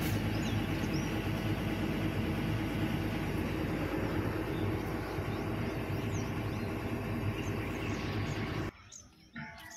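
An engine running steadily at idle, a low, even drone that cuts off suddenly near the end.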